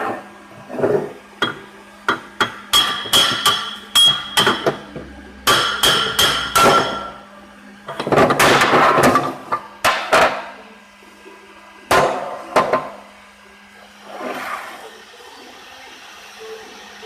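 Hammer blows with a metallic ring, struck in quick irregular runs, driving a Hyosung 150 motorcycle crankshaft home into its crankcase. A rougher, denser noise comes in the middle, the blows thin out to single strikes, and it goes quieter near the end over a steady low hum.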